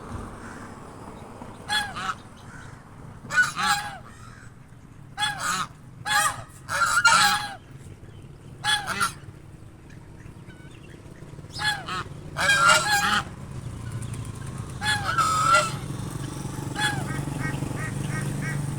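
A pair of swans calling: about a dozen short, nasal honks, some single and some in quick pairs, at irregular intervals.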